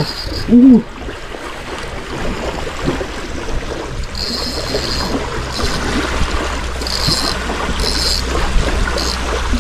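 Wind buffeting the microphone over small waves lapping the shore, with a brief voiced exclamation about half a second in. From about four seconds in, a spinning reel whirs in short spurts as line is reeled in on a hooked fish.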